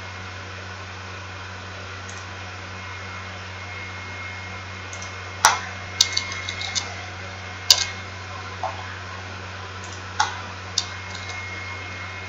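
Computer keyboard keystrokes: scattered single clicks and short quick runs of keys, starting about five seconds in, over a steady low hum.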